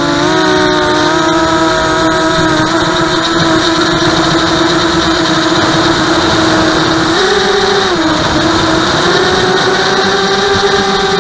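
Brushless motors and propellers of a Vortex 250 FPV racing quadcopter in flight, heard close from its onboard camera: a steady buzzing whine whose pitch steps up about seven seconds in, dips, then rises again as the throttle changes.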